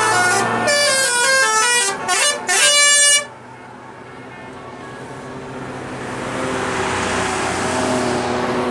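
Tour bus's multi-tone musical "telolet" horn playing a quick stepping tune for about two and a half seconds and cutting off abruptly. The bus's engine then hums, growing steadily louder as the bus draws up and passes close by.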